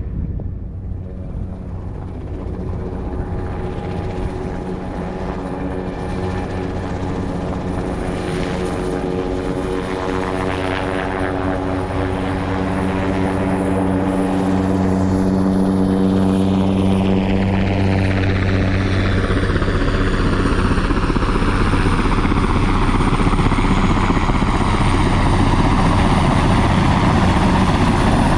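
Sikorsky S-58T turbine helicopter running as it approaches and comes overhead, its rotor and engine sound growing steadily louder.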